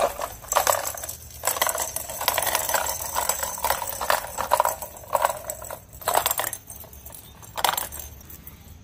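Toy balls rattling and clicking irregularly as kittens bat them about, with a light jingle.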